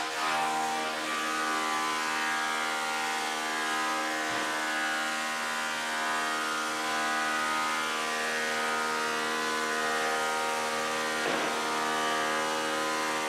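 Lumber planer running steadily, a constant hum made of many steady tones, with a brief change in the sound about eleven seconds in.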